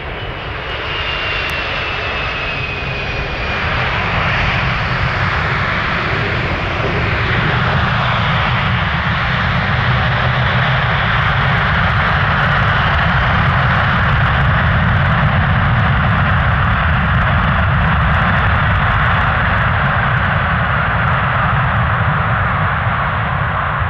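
Boeing 747-400 freighter's four GE CF6-80C2 turbofans roaring on the landing rollout, swelling over the first few seconds as reverse thrust is applied, then holding a loud, steady roar. A falling whine sounds through the first few seconds.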